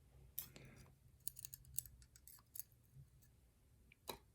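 Faint, scattered small clicks of lock pins and springs being handled and set down while the lock is taken apart, a little cluster of them about a second and a half in and one more just before the end.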